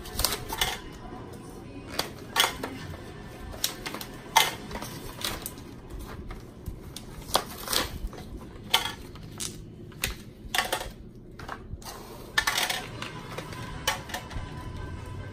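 Small plastic hair bobbles and ties dropped into clear plastic storage containers, making irregular clicks and clatters.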